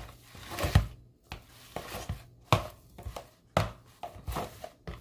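Cooked purple yam being mashed by hand: irregular knocks of the mashing tool, about two a second, as the yam is worked down to a fine mash.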